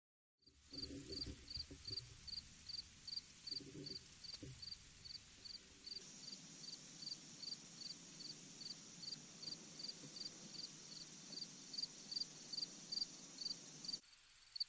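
Insects chirping faintly: a short high chirp repeating evenly about two to three times a second over a steady, higher-pitched trill.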